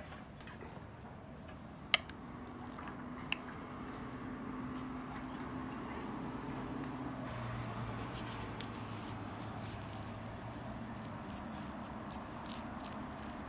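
Chopsticks and a metal spoon working kimchi and rice: a sharp click about two seconds in and a smaller one a second later, then soft squelching and light scraping as the spoon mixes through the sticky rice near the end, over a low steady hum.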